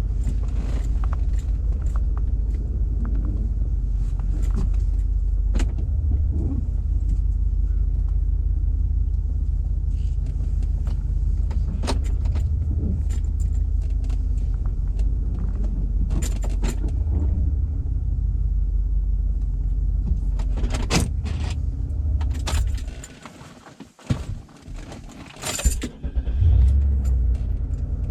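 2002 Cadillac DeVille's V8 exhaust droning inside the cabin while driving, through a Thrush welded performance exhaust with the resonator deleted. A steady low rumble with scattered light rattles and clicks. About 23 seconds in the rumble drops away almost completely, then comes back loudly about two seconds later.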